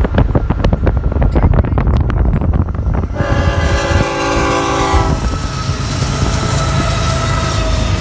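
Florida East Coast GE ES44C4 diesel freight locomotive passing at speed. It sounds one long horn blast of nearly two seconds, starting about three seconds in, after a run of sharp clicks. Then come the rumble and rattle of double-stack intermodal well cars rolling by.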